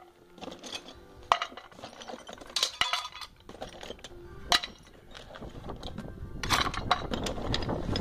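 Aluminium ingots and scrap pieces dropped into a plastic bucket, clinking against one another in several separate sharp knocks.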